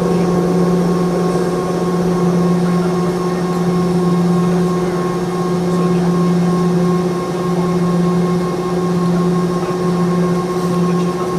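Cabin noise inside a Boeing 717-200: the steady drone of its tail-mounted Rolls-Royce BR715 turbofans, with a constant low hum and a fainter higher tone.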